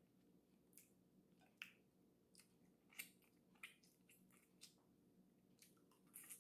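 Faint mouth sounds of eating boiled blue crab: scattered short smacks and clicks as meat is sucked from pieces of shell and chewed, roughly one a second.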